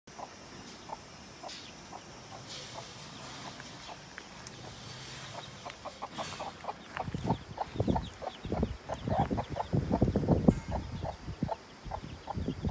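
Mother hen clucking softly and repeatedly to her brood of chicks, with the chicks cheeping faintly. In the second half, louder close rustling and knocks come in under the calls.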